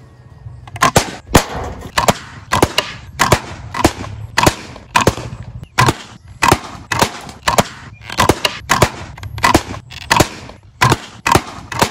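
Homemade wooden rifle-style slingshot firing shot after shot, its rubber bands releasing with sharp snapping cracks. They come fast, about two a second and often two close together, starting about a second in.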